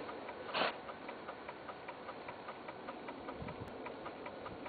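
Porsche 993 electric seat motor running as the backrest reclines, with a regular mechanical ticking of about five ticks a second. A brief whoosh comes about half a second in.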